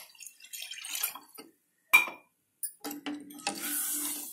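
A steel ladle stirring watery vegetable corn soup in a metal pot: liquid sloshing, with a few sharp clinks of the ladle against the pot.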